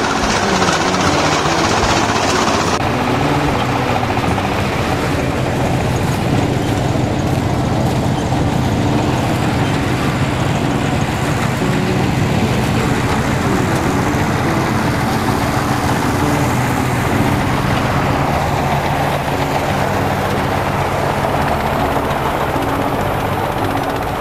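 Mini combine harvester running steadily in a rice field, its engine humming under the rattle of the cutting and threshing gear as it harvests.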